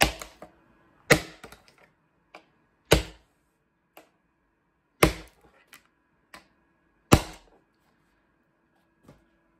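Machete blade chopping down on a plastic toy pistol: five hard strikes about two seconds apart, each followed by small clicks of plastic, as the toy breaks into pieces. A faint last knock comes near the end.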